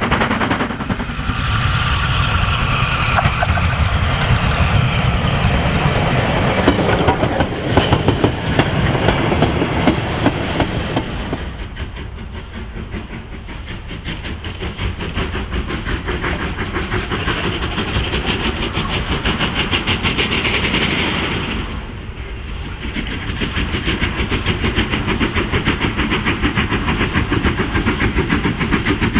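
Steam locomotive working hard at the head of a freight train, its chimney exhaust beating rapidly. About eleven seconds in the sound changes to a second approach, the three-cylinder LNER K4 2-6-0 no. 61994 working towards the listener with its exhaust beats growing louder. There is a brief drop near the twenty-two second mark, and the beats come fast and even towards the end.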